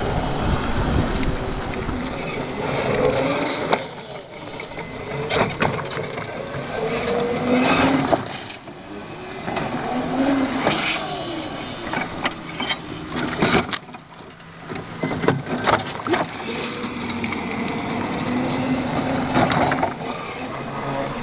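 Homemade large-scale RC truck's 500-watt electric motor whining, its pitch rising and falling again and again as the truck speeds up and slows. Scattered sharp knocks and clatters come from the truck running over the ground.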